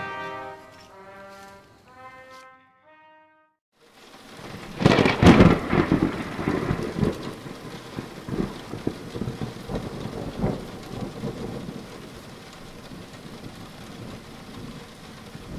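Brass music plays a few held notes and dies away. After a brief silence, a loud thunderclap about five seconds in rumbles off over several seconds, then steady rain continues.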